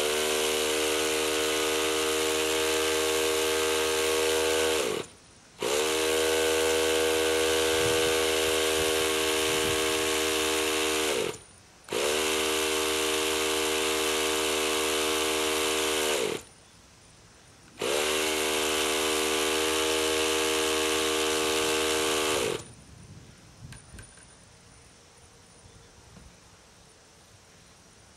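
A small hand-held electric motor whirring in four runs of about five seconds each, with short gaps between. Each run spins up quickly to a steady whine with a hiss and winds down at the end. The last run ends a little over halfway through, and a few faint clicks follow.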